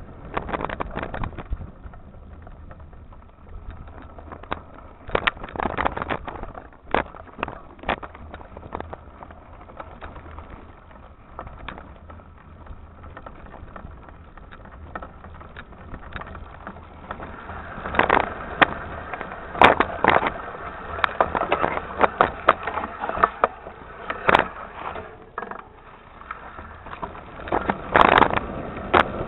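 Mountain bike riding a rough dirt trail, heard from a camera mounted by the front wheel: knobby tyres crunching over dirt and stones, with irregular knocks and rattles from the bike and camera mount. The knocks come thicker and louder in the second half.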